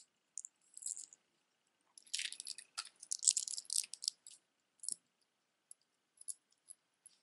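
Costume jewelry handled in the hands: a gold-tone chain necklace with plastic stones clinks and jingles. A burst of jingling runs from about two to four seconds in, with scattered light clicks before and after.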